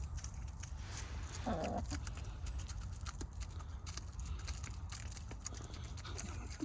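Chickens pecking treats, many quick light taps, with one short hen call about a second and a half in.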